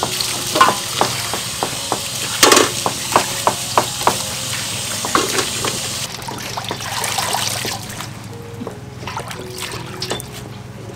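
Leafy greens being washed and lifted out of water in a stainless steel basin: splashing and dripping with many light clinks and knocks against the metal. The water sound stops about six seconds in, leaving a few soft knocks of vegetables and bowls.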